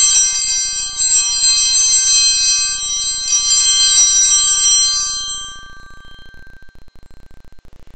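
Altar bells, a cluster of small sanctus bells, shaken and ringing high and bright, shaken again about three seconds in, then dying away about five seconds in: the signal for the elevation of the consecrated host at Mass.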